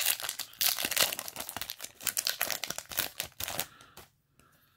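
Foil trading-card booster pack wrapper crinkling and tearing as it is torn open by hand, dying away about three and a half seconds in.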